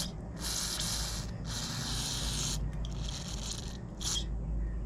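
Aerosol carburetor cleaner sprayed in several hissing bursts, about a second each with a shorter one near the end, through the fuel screen and passages of a chainsaw carburetor.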